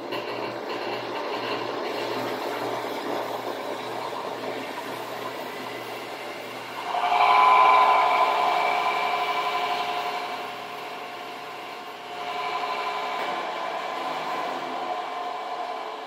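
Delta combination belt and disc sander running steadily, with a silicone cleaning bar pressed against the moving abrasive twice, about seven seconds in and again about twelve seconds in. Each press adds a loud rubbing hiss over the motor and belt noise, which clears the clogged sandpaper.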